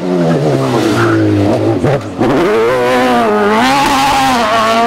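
Single-seater formula racing car's engine at high revs. Its pitch falls as it slows for the bend, breaks off briefly about two seconds in, then climbs again as the car accelerates away.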